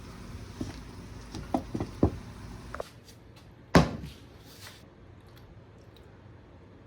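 Kitchen handling sounds: several light knocks and clicks, then one loud thump just under four seconds in. A steady background rush cuts off about three seconds in.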